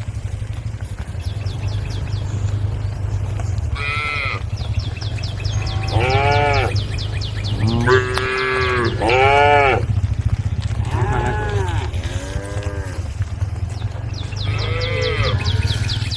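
Cows mooing to the herd: about seven separate calls, each rising and falling in pitch, some short and higher, some longer and deeper. Under them run a steady low hum and a rapid high ticking.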